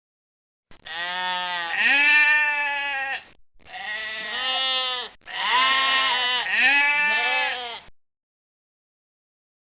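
Goat bleating: a run of long, wavering bleats, one after another, starting about a second in and stopping abruptly a couple of seconds before the end.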